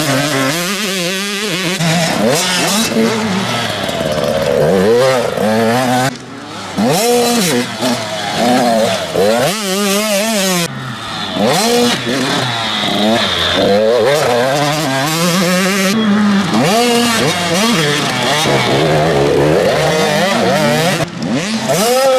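Several small two-stroke youth motocross bikes revving hard on the track, their engine pitch climbing and dropping over and over with throttle and gear changes, often more than one bike at once.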